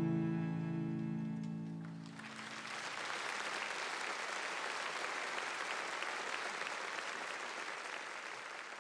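A piano and cello ring out on a final sustained chord that dies away about two seconds in; audience applause then takes over, fading near the end.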